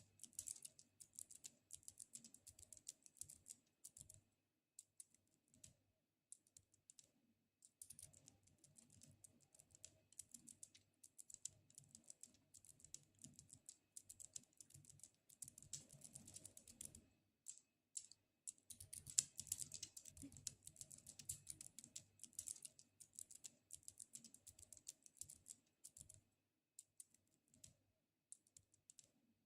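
Faint, close-up ASMR handling sounds: dense runs of quick sticky crackles and clicks, with brief pauses in between.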